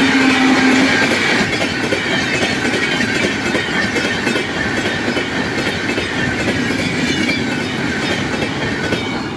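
Passenger coaches of an Indian express train rolling past at speed: a steady, loud rumble of wheels and rail, with a rhythmic clickety-clack of the wheels over rail joints. A held low tone ends about a second in, and the noise eases slightly as the train goes by.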